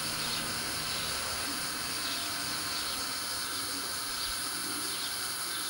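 Gas stove burner hissing steadily under a frying pan while the oil in it heats.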